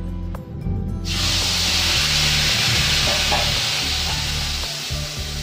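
Blended chili, tomato, shallot and garlic paste hitting hot coconut oil in a frying pan: a sharp sizzle bursts in about a second in, then slowly dies down.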